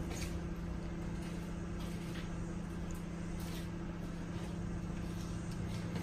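Sharp domestic microwave oven running with a steady hum while it heats a crucible to melt silver.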